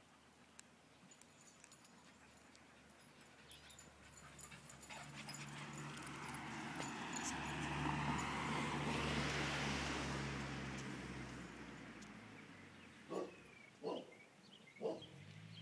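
A rushing noise with a low hum swells over several seconds and fades away. Near the end a small dog gives three short yips.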